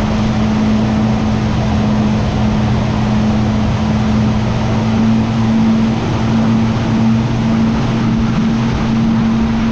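Motorboat engine running at a steady, unchanging pitch under a loud, even rush of wind and water.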